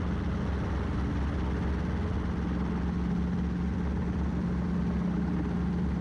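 Robinson R22 helicopter running steadily, heard from inside the cockpit: the drone of its four-cylinder Lycoming piston engine and two-blade main rotor, even and unchanging.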